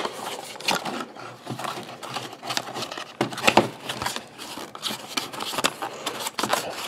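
Small paperboard product box being opened by hand, its flaps and inner tray sliding and scraping out, with irregular rustling and light clicks and taps.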